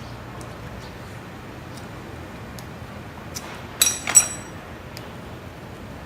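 Two light metallic clinks a little under half a second apart, each with a brief ring, as a metal hand tool knocks against metal, among faint ticks of handling.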